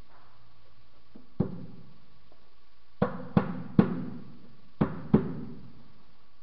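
Six sharp knocks with a short ring from hands working on top of a car engine, as parts or tools are knocked into place or set down: one, then a group of three, then two close together.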